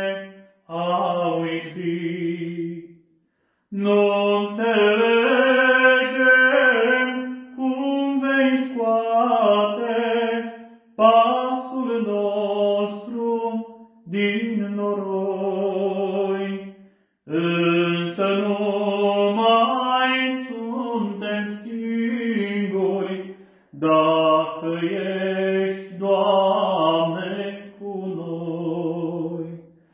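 A male Orthodox priest singing a church song solo and unaccompanied, in long held phrases with short pauses for breath between them.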